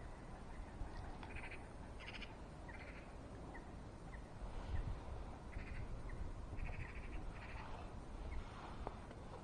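Intrepid Extra reel's check clicking in short, rapid rattles as line is wound in on a hooked fish being played in towards the net, over a low rumble of wind on the microphone.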